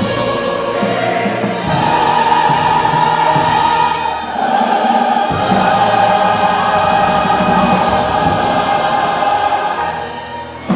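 A large church choir singing long held chords, moving to a new chord about four seconds in and easing off near the end.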